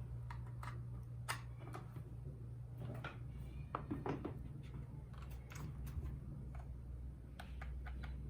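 Irregular clicks and light knocks, one or two a second, from handling the RAKK Lam Ang Pro mechanical keyboard, over a steady low hum.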